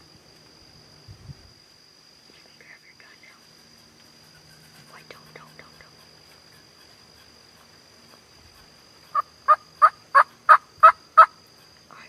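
Turkey yelping: a run of seven loud, evenly spaced yelps, about three a second, near the end, after a few faint calls earlier.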